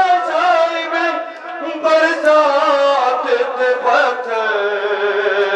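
A man chanting an Urdu nauha, a Shia lament, unaccompanied, into a microphone with a sliding, ornamented melody. About four seconds in, other men's voices join and the chant becomes a fuller, steadier group sound.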